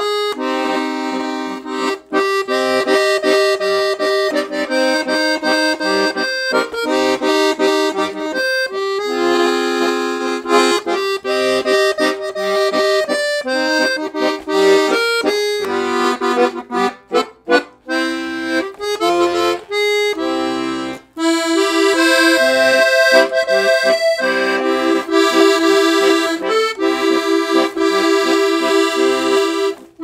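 Red Parrot Kiwi 26-key, 48-bass piano accordion, a two-reed entry-level model, playing a tune: a right-hand melody over left-hand bass-and-chord accompaniment, with a few brief breaks in the playing around the middle.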